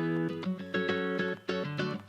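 Background music: an upbeat guitar-led instrumental with notes plucked in a quick, even rhythm.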